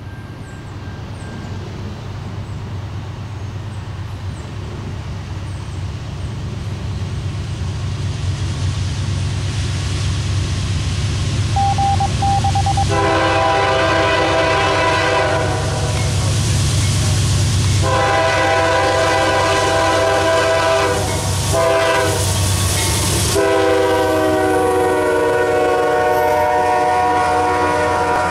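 A pair of GE diesel locomotives approach with their engine rumble growing louder, then the locomotive air horn sounds the grade-crossing signal: two long blasts, one short, and a final long blast held to the end.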